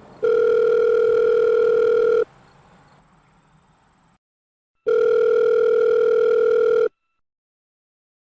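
Electronic telephone tone, a steady two-second beep that sounds twice with about two and a half seconds of silence between, like a phone line ringing.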